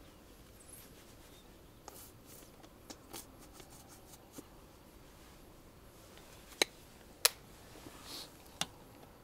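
Small handling sounds of objects in someone's hands: light scattered clicks and rustles, with two sharp clicks about six and a half and seven seconds in, then a short rustle and one more click.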